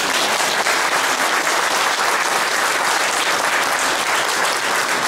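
Audience applauding, a dense steady clapping of many hands, with hands clapping close by.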